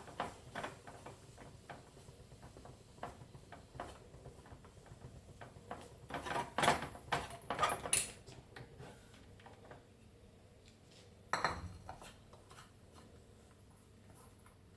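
Kitchen utensils clinking and scraping against kitchenware: scattered light clicks, a busier cluster in the middle and one sharp knock about eleven seconds in.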